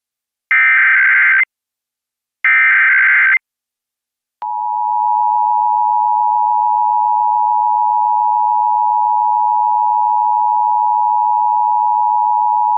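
Emergency Alert System SAME digital header: two short warbling data bursts about a second apart. They are followed, after a click at about four seconds in, by the steady two-tone EAS attention signal (853 and 960 Hz), which holds for about eight seconds and then cuts off. Together they open a required monthly test.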